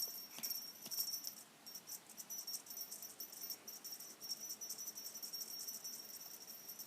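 Small metal cat toy jingling faintly as a kitten bats and shakes it: a rapid, irregular high tinkling that keeps going.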